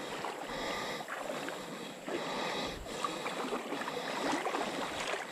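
Shallow river water sloshing and splashing as someone wades through it, with uneven surges of splashing rather than a steady flow.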